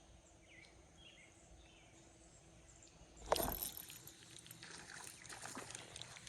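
Faint chirps over a quiet stream, then about three seconds in a sudden splash, followed by irregular sloshing of water as someone wades the creek.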